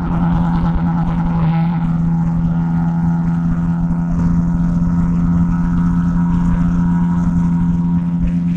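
Bajaj Pulsar RS 200 motorcycle on its stock exhaust, its single-cylinder engine running at steady, unchanging revs.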